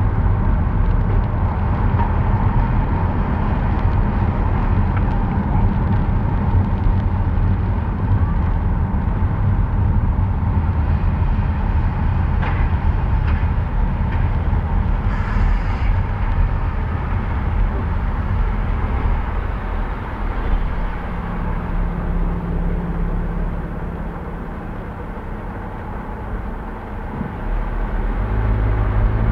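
Car driving through city streets: a steady low rumble of engine and tyre noise on a rainy-day road. About three-quarters of the way in it drops to a quieter steady hum for a few seconds, then picks up again.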